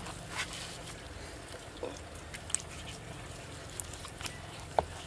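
Gloved hands pulling apart roasted pork leg meat on a wooden board: faint scattered clicks and handling noises over a low steady hum, with one sharper click near the end.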